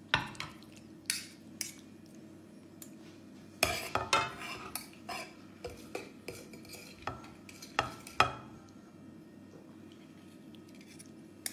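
Metal tongs and a steel ladle clinking and scraping against each other, the pan and the plate as spaghetti is plated: a dozen or so sharp knocks, with clusters about four seconds in and again around eight seconds.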